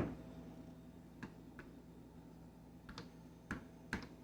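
About five faint, light clicks and taps from handling the new refrigerator's door, which won't stay shut, over a low steady hum.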